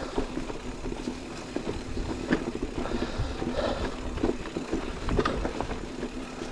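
Decathlon Stilus electric mountain bike riding a rough trail: a steady motor hum under frequent rattles and knocks from the bike going over bumps.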